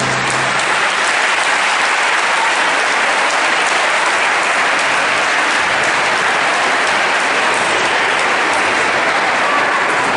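Audience applauding steadily at the end of a roller-skating routine, after the routine's music cuts off right at the start.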